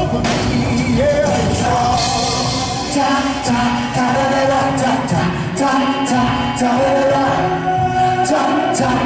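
Live music: a sung vocal line over a full backing track, with sharp drum hits.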